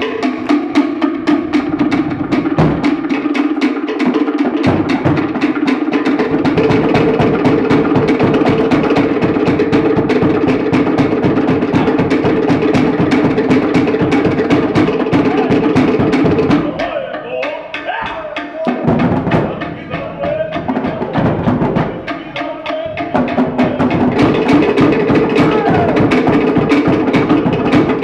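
Cook Islands drum ensemble playing a fast, driving rhythm on wooden slit log drums backed by a large skin drum. A little past the middle the drumming thins to a few scattered strikes for several seconds, then resumes at full pace.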